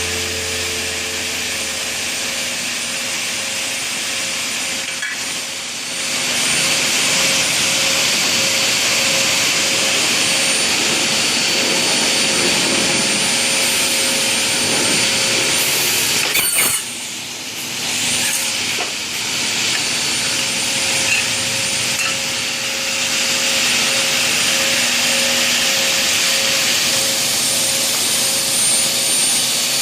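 Circular saw blade of a single-head aluminium cutting machine running and cutting through aluminium profile: a steady hissing whine that gets louder about six seconds in, with a short break near seventeen seconds.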